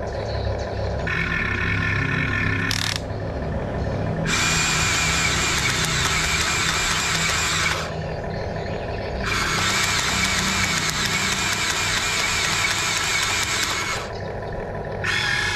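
Huina RC excavator's electric motors whining as the boom and bucket move. There are four runs of a high drill-like whine, the longest about four to five seconds and the last one brief, over a steady low hum.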